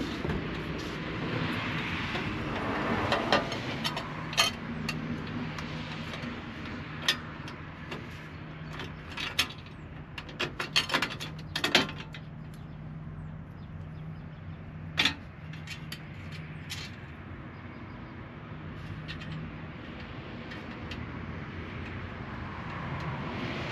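Hand work on a metal bracket as bolts are fitted to hold it in alignment: scattered metallic clicks and knocks, with a busier run of them about halfway through, over a steady low hum.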